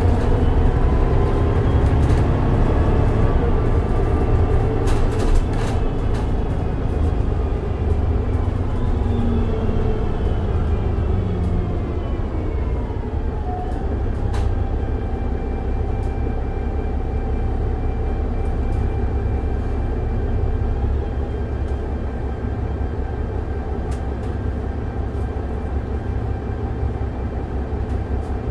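Mercedes-Benz O405NH bus with a Voith automatic transmission running under a heavy low rumble, its drivetrain whine falling in pitch through the first half as the bus slows, then holding steady tones.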